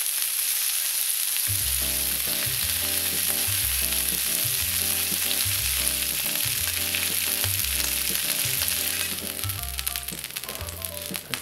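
Hanwoo beef chuck flap steak pieces sizzling on a hot griddle pan, a steady hiss, with background music coming in about a second and a half in. The sizzle thins out near the end.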